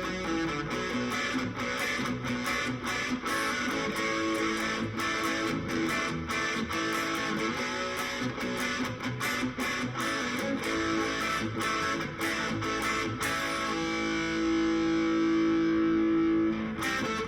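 Electric guitar with humbucker pickups played through an amplifier and overdrive pedal, picking rock riffs and chords. Near the end a chord rings out louder and sustained for a few seconds, then is cut off.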